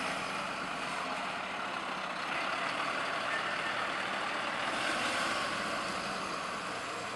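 Mercedes-Benz fire engine's diesel engine running as the truck pulls away and drives past, loudest about five seconds in, then easing off slightly.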